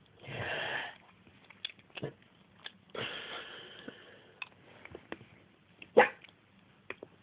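A woman's hiccups: short, sharp gulping catches about a second apart, with two longer breathy breaths between them. The loudest hiccup comes about six seconds in.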